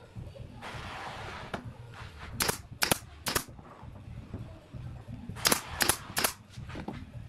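Pneumatic nail gun firing six times in two quick groups of three, each shot a sharp crack about a third to half a second apart, nailing the corner joints of a pine frame.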